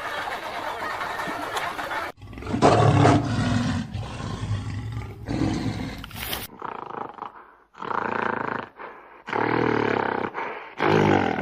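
Large animal roaring and calling: a series of deep, pitched calls about a second long each, in separate clips joined by abrupt cuts.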